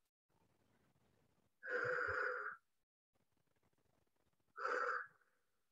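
A woman breathing out audibly, twice: a long exhale of about a second, then a shorter one near the end, with near silence between. These are slow breaths taken while holding a stretch.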